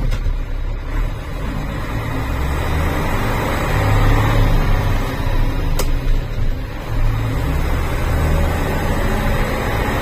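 Saurer 10DM 6x6 army truck's diesel engine running while driving, heard from inside the cab, its deep rumble swelling and dipping as gears are changed on the semi-automatic gearbox. A single sharp click about six seconds in.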